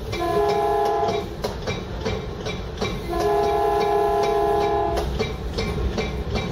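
Train horn sounding two blasts of several notes together, a short one and then a longer one about two seconds long, heard from inside a moving passenger car over the steady rumble of the train and the clicking of its wheels on the rails.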